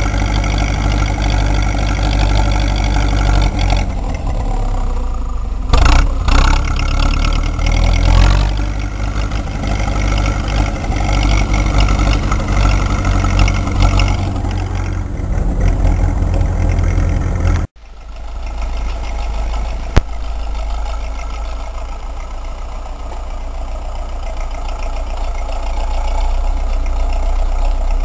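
Ursus C-4011 tractor's two-cylinder diesel engine running while pushing snow with a front blade, loud and close as heard from the driver's seat, with a few heavy knocks in the first third. Near two thirds in the sound cuts to the same engine heard from further off, steady and slowly growing louder.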